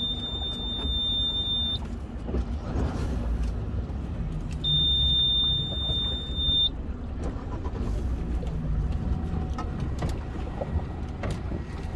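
Two long, steady electronic beeps, each about two seconds, from the warning buzzer of a boat's Suzuki outboard remote control as the key is worked, over a continuous low rumble.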